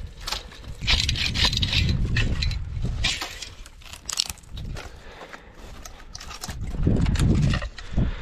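Folding hand saw rasping through a dry dead branch in quick back-and-forth strokes, then quieter crackling of twigs and brush. Low gusts of wind hit the microphone near the end.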